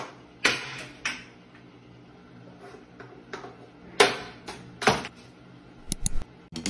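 A cat batting at small objects on a tiled ledge: irregular sharp taps and clinks, about ten in all, some close together.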